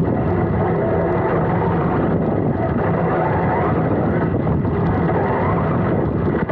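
Serpent SDX4 electric 4wd RC buggy driving flat out over bumpy grass, heard from a camera mounted on the car itself: a steady, loud rattle and rumble of the chassis and drivetrain.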